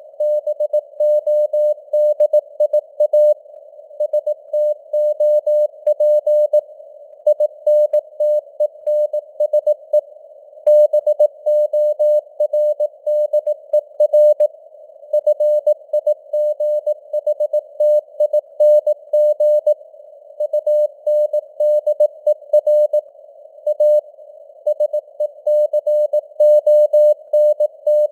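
Morse code (CW) sent at 18 words per minute: a single steady-pitched tone keyed on and off in dots and dashes, over a narrow band of simulated radio noise, with the signal strength varying (QSB fading).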